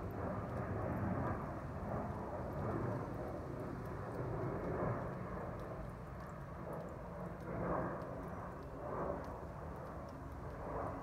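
Steady low outdoor background rumble, swelling a few times in the second half.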